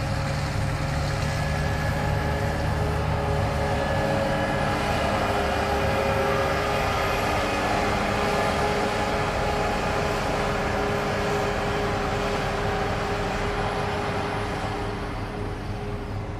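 Fendt 9T combine harvester running, a steady mechanical drone with whining tones from its drives. Its deep engine rumble drops away about four seconds in, and the whole sound fades gradually near the end.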